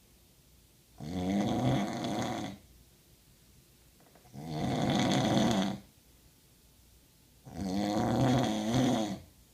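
A person snoring loudly: three long snores of about a second and a half each, coming at a regular pace roughly every three seconds, with quiet gaps between them.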